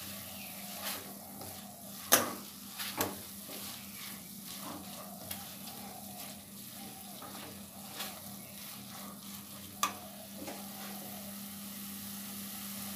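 Silicone spatula stirring and scraping grated coconut and sugar filling in a nonstick pan, with a faint steady sizzle as the moisture drawn out by the sugar cooks off. A few sharp taps of the spatula on the pan, the loudest about two seconds in.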